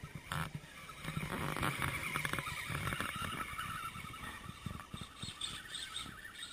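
Electric motor and drivetrain of an Axial Wraith 1.9-scale RC crawler whining as it drives over loose gravel and rocks, with scattered clicking and crunching of stones under the tyres. The whine grows louder a second or so in and eases off near the end.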